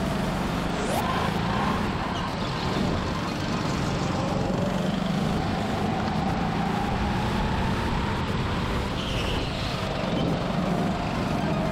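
Indoor go-karts running around the track, heard from the driver's seat: a steady motor hum with a thin whine that rises and falls in pitch as the kart speeds up and slows through the corners, over tyre and air noise.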